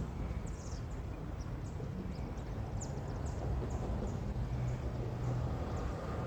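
Cars of a long mixed freight train rolling past: a steady low rumble with scattered short, high squeaks from the wheels.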